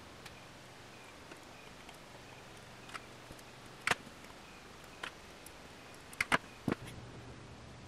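A handful of light, sharp metallic clicks and taps as a piston and its rings are handled with ring expander pliers, the loudest about four seconds in and a quick cluster of three a little after six seconds. A faint steady hum runs underneath.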